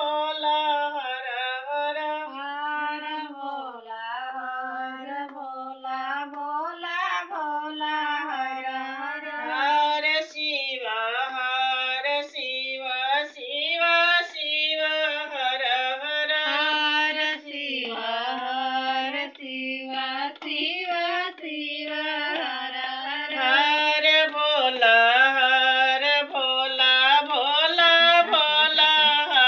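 A woman singing a devotional bhajan for Shiva in one continuous melodic line, with long held and gliding notes.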